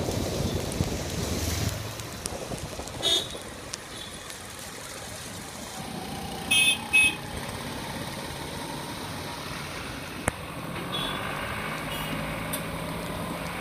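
Street traffic heard from a moving car: steady road and engine noise, with a short horn toot about three seconds in and two quick toots close together around six and a half to seven seconds. A single sharp click comes near ten seconds.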